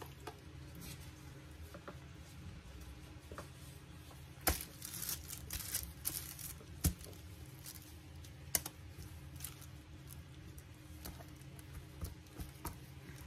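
Gloved hands handling soft cooked cabbage leaves and rolling them around filling: scattered crinkles of the disposable plastic gloves and small sharp clicks and taps, the sharpest about four and a half, seven and eight and a half seconds in, over a low steady hum.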